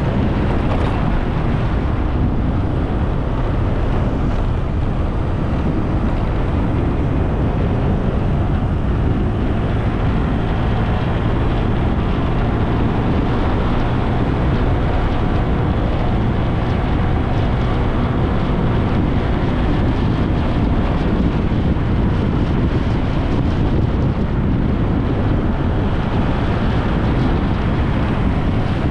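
Steady wind rush on the microphone of a moving motorbike, with its engine running underneath as it rides along a road.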